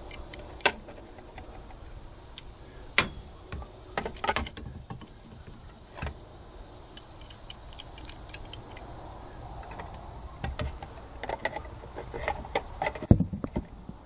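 Scattered metallic clicks and clinks of pliers gripping and working the ignition switch and its nut under a pontoon boat's console, with a heavier thump near the end.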